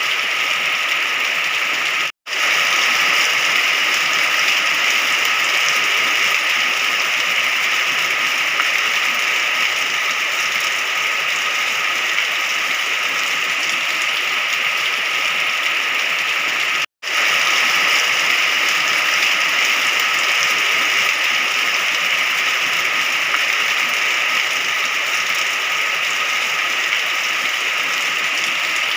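Rain falling steadily, an even hiss. It cuts to silence for an instant twice, about two seconds in and again about seventeen seconds in.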